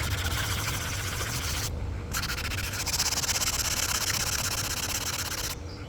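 Sandpaper rubbed back and forth over a cured Solarez UV-resin repair on a carbon kiteboard, a continuous scratchy rasp that breaks off briefly about two seconds in and again near the end.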